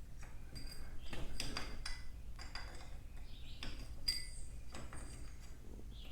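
Irregular metallic clinks and taps of a wrench working the square-head set screw on a garage door's torsion-shaft cable drum, loosening it to remove the drum.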